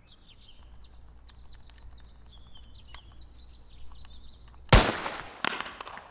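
Birds chirping faintly, then two loud gunshots about two-thirds of a second apart near the end, each trailing off.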